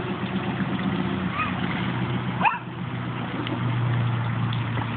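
A motor runs steadily with a low hum throughout. A few short, high yelps sound over it, one about one and a half seconds in and a louder one about two and a half seconds in.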